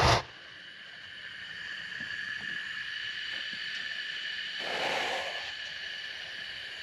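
A hot-air balloon's propane burner blast cuts off just after the start. It leaves a faint steady hiss with a thin high whistle from the burner's pilot flames, and a short swell of hiss about five seconds in.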